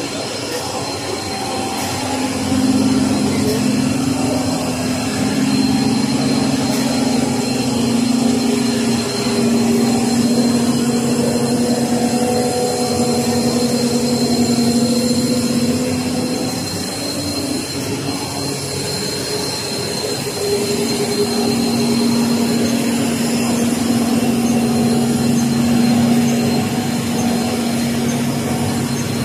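Instant-noodle production line running: the dough-sheet rolling machines and conveyors make a steady mechanical hum with a few held drone tones and a thin high whine. The low drone swells and fades over the stretch.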